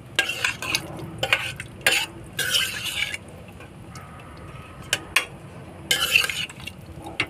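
Steel spoon stirring chickpeas in thick masala gravy in a pressure cooker pot, with irregular scrapes and clinks of metal against metal and a quieter stretch midway.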